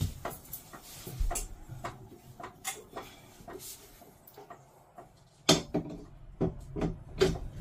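Knocks and clicks of a removable RV dinette table top being set back onto its pedestal leg and fastened, with the loudest knocks in the second half.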